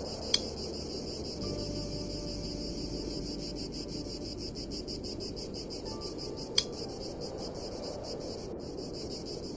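Insects chirring in a fast, even pulsing trill, the panorama's ambient sound. Two sharp mouse clicks come through, one just after the start and one about six and a half seconds in.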